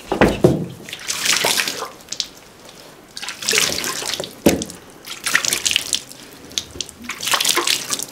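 Water splashing and running in four bursts about two seconds apart, with quieter gaps between.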